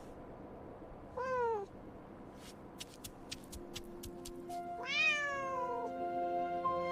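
A cat meowing twice: a short meow falling in pitch about a second in, then a longer one that rises and falls around five seconds in. Soft sustained background music fades in under the second meow.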